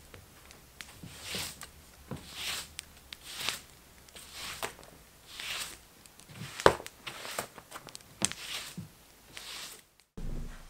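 Broom sweeping a plywood floor in brisk strokes, about one swish a second, with a sharp knock about two-thirds of the way through.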